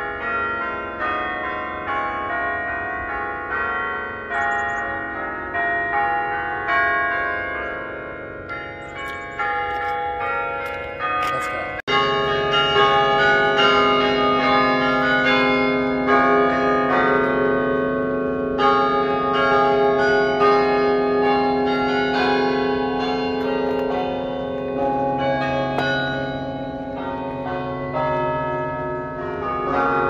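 Cornell Chimes, the hand-played tower bells in McGraw Tower, playing a tune as a steady run of struck bell notes, each ringing on under the next. About twelve seconds in the bells suddenly become louder and fuller.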